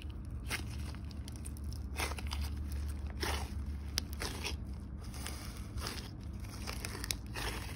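Thick floam slime packed with foam beads being pressed and squeezed by hand, giving irregular crunching and crackling clicks.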